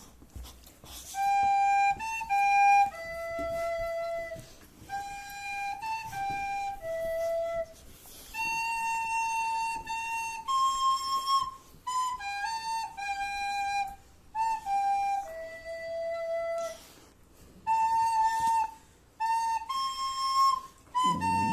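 A flute playing a slow melody of held notes in short phrases with brief pauses between them; a Boxer dog starts to howl just before the end.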